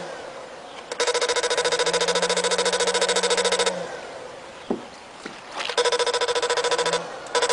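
Electric fish-shocker (electrofishing inverter) buzzing in bursts as the pulse is switched on and off through the pole electrode in the water. It makes a harsh, rapidly pulsing electric buzz: one burst of nearly three seconds, a gap with two short clicks, then two shorter bursts.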